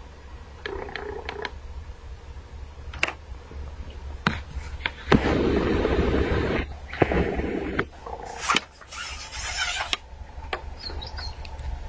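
A hooked crucian carp thrashing and splashing at the water surface, loudest for over a second about five seconds in. More splashing and spray follow as it is lifted clear of the water.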